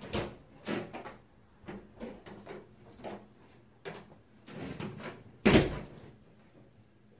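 A wooden interior door being handled: a string of bumps and knocks, then the door shutting with a heavy thump about five and a half seconds in.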